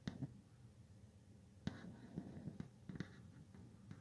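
Very faint handling noise: a few soft, scattered clicks and rustles over low room hiss.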